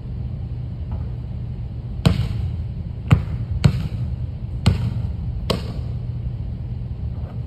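A basketball dribbled and bouncing on a hardwood gym floor: five or six single bounces at uneven intervals, over a steady low hum.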